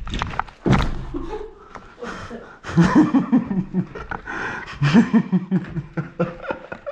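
Men laughing and chuckling, with a couple of sharp knocks in the first second.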